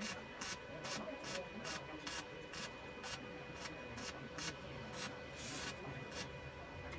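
Quiet background music with an even beat of short hissing ticks, about two to three a second, over faint held tones.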